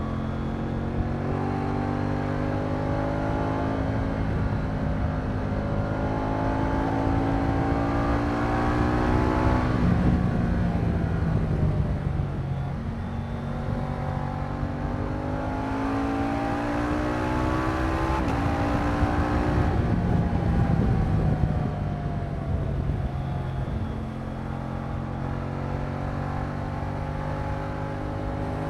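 Moto Guzzi V100 Mandello's liquid-cooled transverse V-twin running under way, its note climbing slowly in pitch as the bike accelerates and falling back twice, about ten and eighteen seconds in, as the revs drop.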